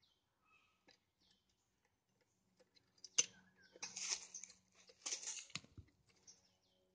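Hands working on a chainsaw being cleaned of sawdust: a sharp click about three seconds in, then two short scraping rustles about a second apart. Faint bird chirps in the background.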